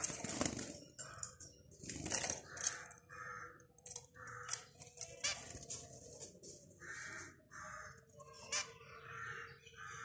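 Caged zebra finches giving short repeated calls, one every half second to a second. Wings flutter loudly at the start and again about two seconds in, as birds flap around the nest box and feeder.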